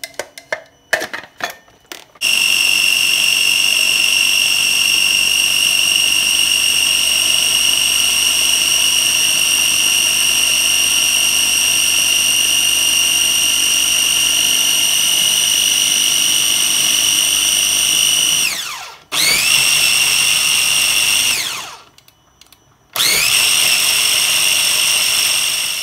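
Cuisinart 4-cup mini food processor pureeing boiled tomatoes into sauce. A few clicks come first, then the motor whines steadily for about sixteen seconds. It winds down with a falling whine and is pulsed twice more for a couple of seconds each.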